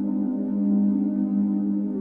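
Ambient music: a slow, sustained drone of steady low tones, with no beat.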